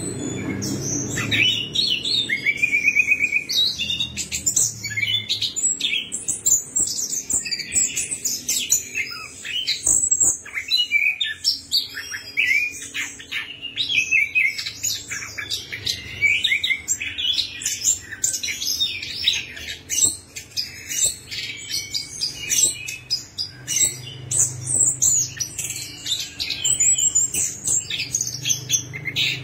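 Chestnut-capped thrush (anis kembang) singing a long, fast, continuous run of varied high chirps, whistles and trills, with a brief pause about ten seconds in.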